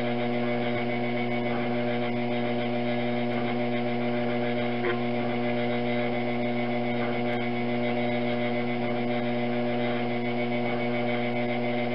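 Electric potter's wheel running with a steady, even hum while a clay jug is shaped on it.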